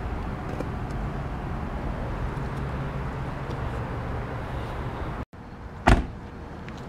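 Steady outdoor background hum, then about six seconds in a single sharp click as the 2016 Chevrolet Camaro SS's driver's door handle is pulled and the latch releases.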